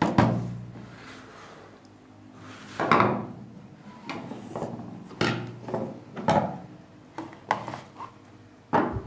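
TOTAL screwdrivers being pulled from their plastic stand and laid down on a hard table: a dozen or so irregular clacks and knocks of plastic handles and steel shafts, the loudest near the start and about three seconds in.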